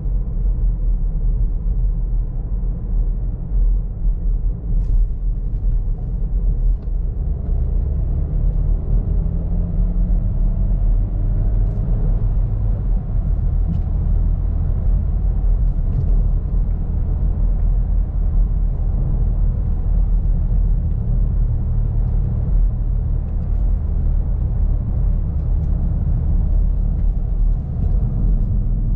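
Skoda Karoq 1.5 TSI turbo four-cylinder petrol engine and road rumble heard from inside the cabin while driving, a steady low drone. The engine note climbs briefly about a third of the way in.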